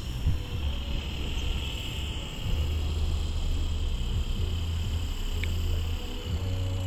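Wind buffeting a phone's microphone: a low, uneven rumble that swells and drops every second or so, over a faint steady high hiss.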